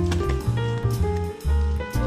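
Background music: an upbeat jazzy tune with drum kit and a bass line.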